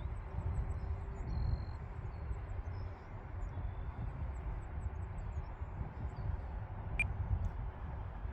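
Wind buffeting the microphone in a low, uneven rumble, with faint high chirps above it. There is a single sharp click about seven seconds in.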